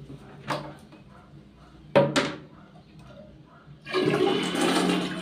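A few sharp knocks, then about four seconds in a flush toilet flushes with a sudden, loud rush of water: a test flush after repairing the flush mechanism.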